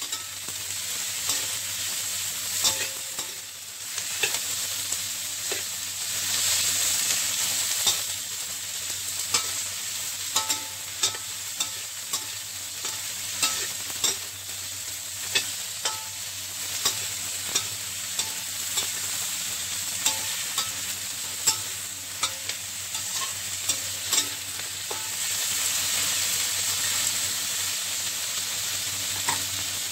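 Sliced onions sizzling in hot oil in a stainless steel wok while a spatula stir-fries them, with frequent sharp scrapes and taps of the spatula against the wok, some ringing briefly.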